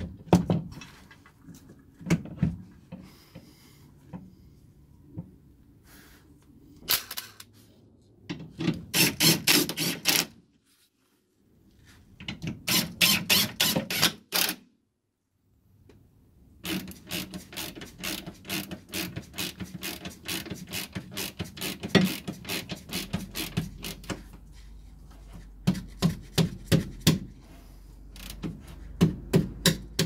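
Hand ratchet wrench clicking in quick runs as the nut on a new rear sway-bar drop link is tightened, with two short breaks partway through.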